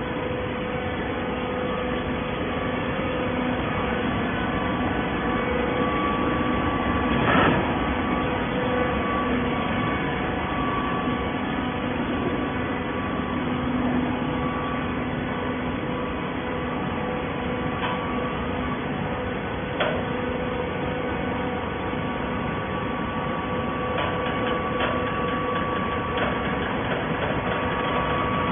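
Hydraulic bottle baler running: a steady machine hum with a few clanks, the loudest about seven seconds in.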